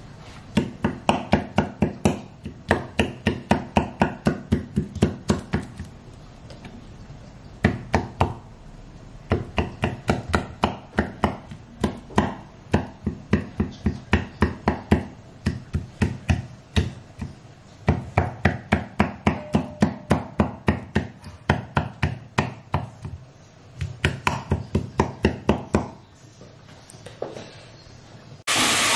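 A fork jabbing repeatedly through raw boerewors into a wooden cutting board: quick sharp taps, about three or four a second, in runs broken by short pauses. Just before the end, a sizzle of frying cuts in.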